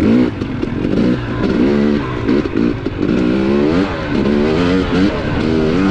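KTM 250 dirt bike engine revving up and down repeatedly as the throttle is worked on a rough singletrack, the engine note rising and falling about once or twice a second.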